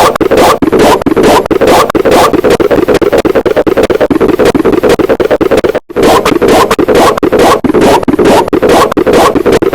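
Heavily effect-processed, distorted audio made of loud, rapid repeating pulses, about two or three strong ones a second. It cuts out for an instant about six seconds in and then starts again.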